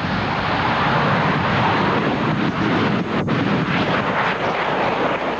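Jet airliner's engines at takeoff power as it speeds down the runway and lifts off: a loud, steady rushing engine noise.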